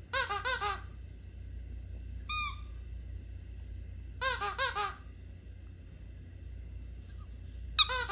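Rubber squeaky dog toy squeaking in short bursts as a dog bites down on it: a quick run of four squeaks at the start, a single higher squeak about two seconds in, another run of four about four seconds in, and a louder run starting near the end.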